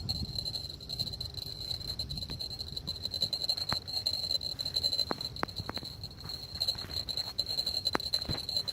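Insects trilling steadily in one continuous high-pitched note, over a low rumble. A handful of sharp clicks come in the second half.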